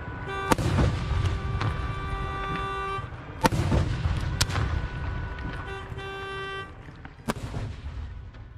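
Fireworks going off: several sharp bangs over a low rumble, with steady pitched tones sounding through two long stretches. It all fades away near the end.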